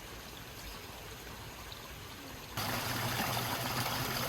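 Steady rushing water, which becomes abruptly much louder and brighter about two and a half seconds in.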